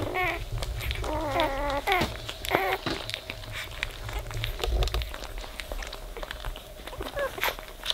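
Newborn Weimaraner puppies squeaking and whining as they nurse, with several short high squeals in the first three seconds, over many small wet suckling clicks.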